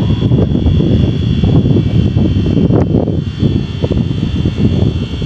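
WAG-12B twin-section electric freight locomotive running at close range: a loud, dense rumble with a steady high whine above it.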